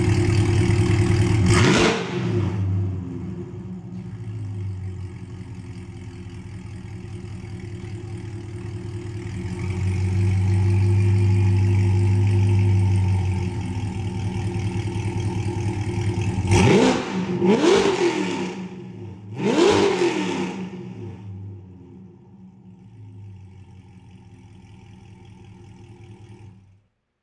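2021 C8 Corvette's 6.2-litre LT2 V8, with headers, cat delete and a full stainless Alpha Speed exhaust, idling loud and being revved. There is a short rev about two seconds in, a longer raised rev around ten to thirteen seconds, then three sharp blips about seventeen to twenty seconds in before it settles back to a lower idle.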